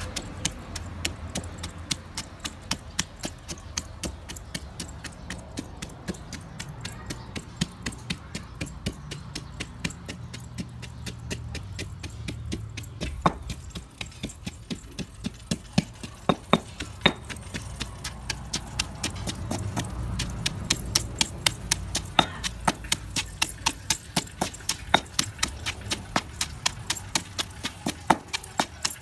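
Stone pestle pounding green chillies in a heavy stone mortar, a steady knock about two to three times a second as the chillies are crushed to a coarse paste.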